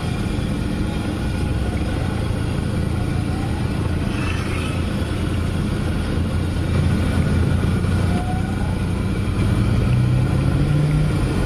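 A giant wok of oil deep-frying a large batch of vermicelli-stuffed tofu, sizzling steadily, over a constant rumble of road traffic. A passing engine grows louder near the end.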